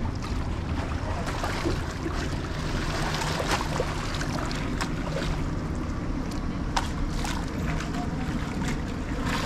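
Wind rumbling on the microphone over shallow water lapping at stone steps, with a few light splashes as someone wades.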